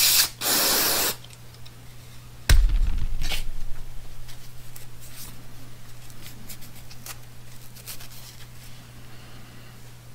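Aerosol parts cleaner hissing in two short bursts as it blows debris out of a brake master cylinder body, then a single sharp knock about two and a half seconds in, followed by faint handling clicks over a steady low hum.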